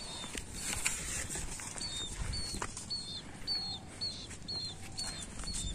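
An animal calling with short, high, repeated chirps, about two a second, clearest in the second half, with a few scattered clicks.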